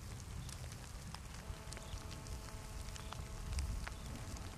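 Light wind rumbling on the camera microphone, with scattered faint ticks and a faint steady hum for a couple of seconds in the middle.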